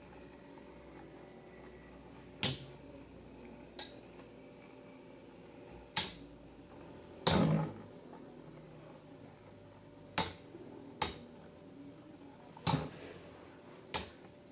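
Two Metal Fight Beyblades, Thermal Pisces and Lightning L-Drago, spinning in a plastic stadium, their metal wheels clashing in about eight sharp clacks at uneven intervals, the loudest a little past halfway. A faint steady whirr of the spinning tops lies under the clacks.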